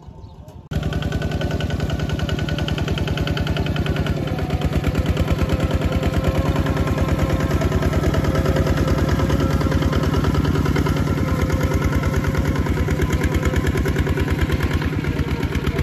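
Two-wheel walking tractor's single-cylinder diesel engine running steadily in a fast, even chug while pulling a plow through wet soil. It starts abruptly under a second in, after a quieter moment.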